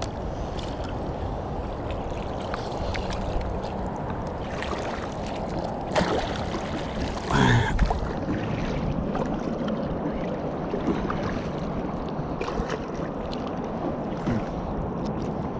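Double-bladed kayak paddles dipping and splashing in shallow water beside an inflatable kayak, under a steady rush of wind and water noise. There is a sharp knock about 6 seconds in and a short falling vocal grunt shortly after.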